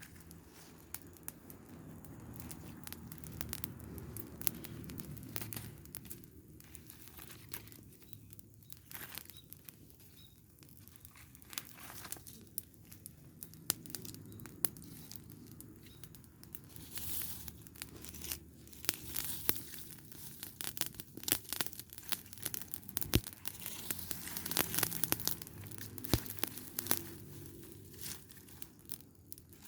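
Open trash fire burning, with dense crackling and sharp pops that grow thicker in the second half, over a low steady rumble.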